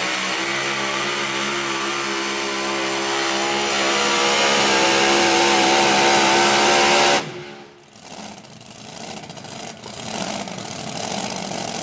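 A super-modified four-wheel-drive pulling truck's engine running hard under load, its pitch climbing slowly, then cutting off abruptly about seven seconds in, leaving a much lower background din.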